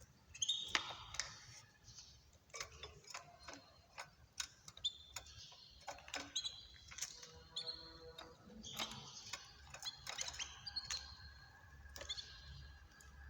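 Caged small songbirds giving brief high chirps, among many short sharp clicks and taps.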